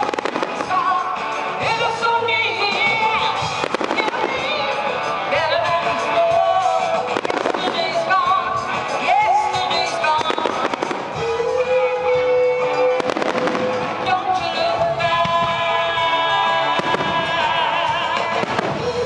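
Aerial fireworks shells bursting one after another through loud music with a sung melody.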